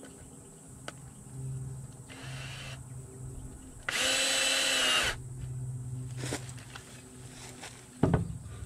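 Cordless drill whirring in one short run of about a second, about four seconds in, after a fainter, briefer run a couple of seconds earlier. A sharp knock near the end.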